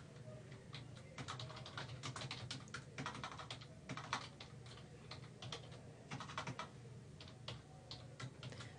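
Typing on a computer keyboard: a run of quiet, uneven keystrokes.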